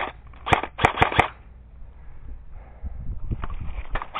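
Airsoft rifle shots: a quick, uneven string of about five sharp cracks in the first second or so, then a few more shots near the end.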